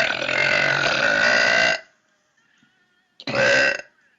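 A woman's long burp at a steady pitch that cuts off about two seconds in, followed near the end by a second, shorter burp.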